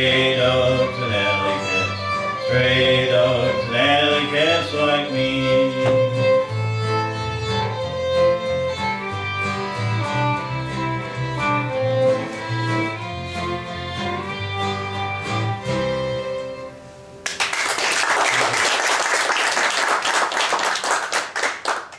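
Fiddle and acoustic guitar playing out the end of a country song, with singing in the first few seconds. The music stops about 17 seconds in and audience applause follows.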